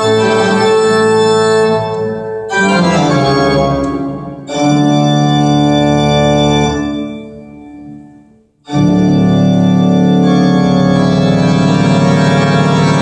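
Organ music played through Technics SB-6000A loudspeakers: long sustained chords that change about 2.5 and 4.5 seconds in, fade away, then a new chord swells in near 9 seconds and is held.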